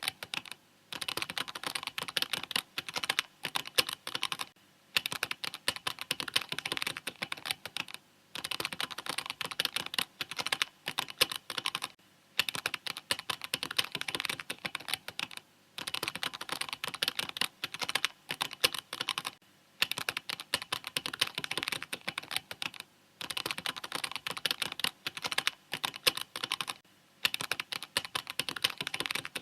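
Fast typing on a mechanical keyboard: rapid runs of key clicks broken by short pauses every few seconds.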